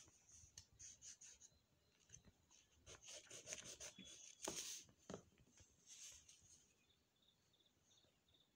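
Coloured pencil shading on paper: faint, scratchy strokes in short runs, with the loudest stroke about four and a half seconds in.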